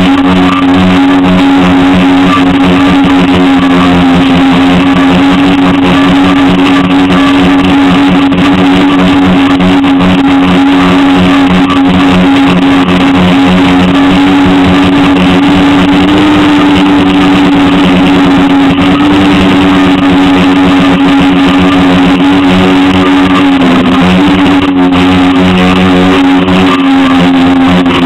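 Electric motors and propellers of a multirotor drone in flight, a loud steady drone heard up close from a camera mounted on the frame. Its pitch holds nearly even, rising a little partway through and dipping briefly a few seconds before the end as the throttle changes.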